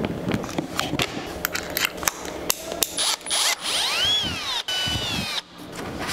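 Power drill with a 5 mm bit drilling a hole in the wiring table. The motor whines up and falls back about four seconds in, then runs briefly at a steady pitch before stopping. Before it comes a string of light clicks and taps.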